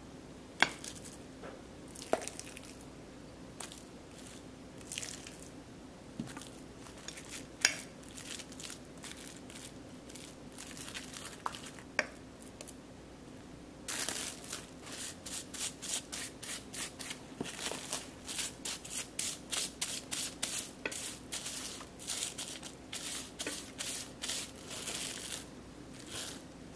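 Faint kitchen handling sounds: a few clicks of a spoon against a steel bowl and glass dish, then, from about halfway, a quick run of soft pats and plastic-wrap crinkles as ground chicken paste is pressed flat by hand into a wrap-lined dish.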